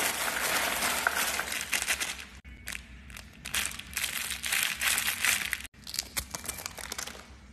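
Crinkly plastic wrappers rustling and crackling as hands rummage through a box of wrapped treats and tear one open. The crinkling comes in bursts with short pauses between.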